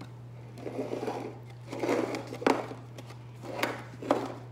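Pringles cans being picked up, shuffled and set back down on a table in three bouts of clattering. A sharp knock comes about halfway through and another near the end as cans are put down.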